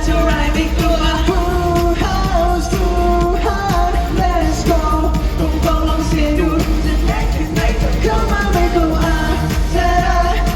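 Pop song with a sung melody over a loud, steady bass-heavy backing.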